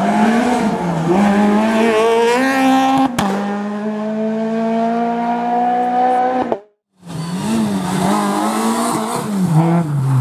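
Rally car engines at full throttle: one car accelerates and holds a steady, slowly rising note with a sharp crack about three seconds in, then after a sudden cut a Citroën C2 rally car passes close, its engine pitch rising and falling repeatedly through the bends.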